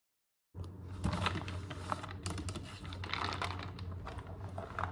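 A plastic cup of coffee being picked up and handled, a run of small clicks and taps over a steady low hum. The sound starts abruptly about half a second in.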